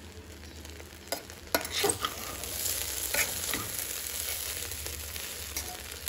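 Metal spoon stirring cooked vegetable rice in a pressure cooker pot, with several short scrapes and taps of the spoon against the pot over a steady sizzle.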